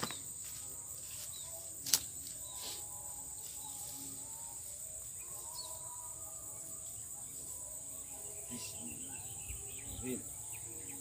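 Steady high-pitched drone of insects in the grass. One sharp click about two seconds in.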